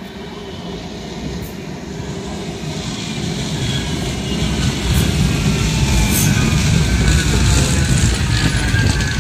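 Manchester Metrolink M5000 tram approaching and slowing: a rumble of wheels on rail grows steadily louder while the whine of its electric traction motors falls slowly in pitch.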